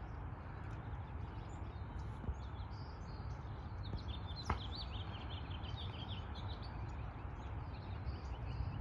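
Steady low outdoor rumble with small birds chirping, and about halfway through a single sharp click of a golf club striking the ball on a short chip shot.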